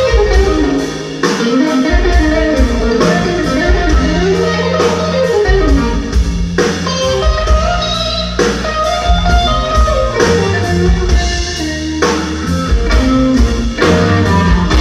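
Live blues band playing: electric guitar lead line with notes that bend and slide in pitch, over bass guitar and drum kit.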